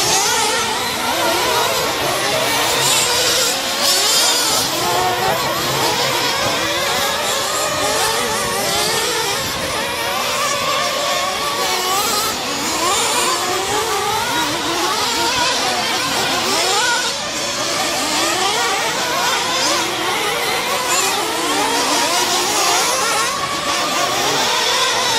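Several radio-controlled racing trucks running on a dirt track, their motors rising and falling in pitch over one another as they accelerate and slow for the corners.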